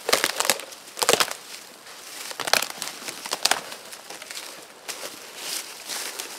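A dead, rotten standing snag cracking and snapping as it is pushed over and broken, with sharp cracks at the start and again, loudest, about a second in. Then come more knocks and crunching, rustling steps in dry leaf litter as the broken log is gathered up.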